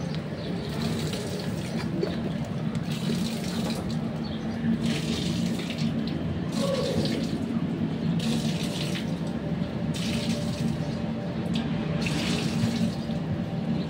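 Ballast tank cleaning water running and splashing out of a tanker's hull, in uneven rushes. A steady low hum sits underneath.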